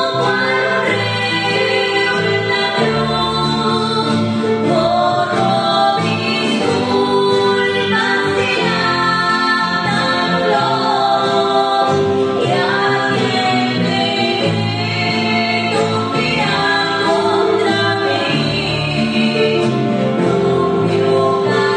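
Two women singing a song together, accompanied on acoustic guitar.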